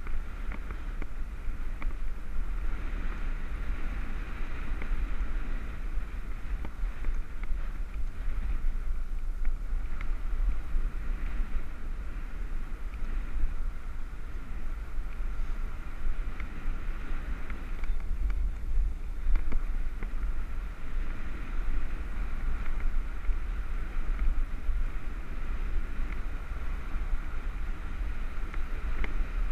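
Wind buffeting the microphone of a helmet-mounted camera on a moving road bike: a steady, gusty low rumble with a band of hiss higher up.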